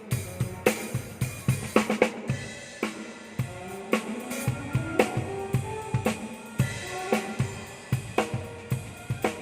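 Drum kit played in a steady groove, with kick drum, snare, hi-hat and cymbals struck in an even rhythm, during a sound check.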